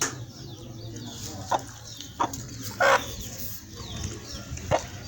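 Chickens clucking: four short calls, the loudest about halfway through, with faint high chirping behind.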